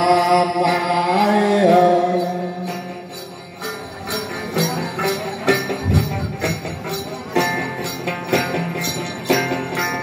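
Hát Then music: voices singing in chorus until about two seconds in, then small bells (a xóc nhạc bell rattle) shaken in a steady beat about twice a second with the music.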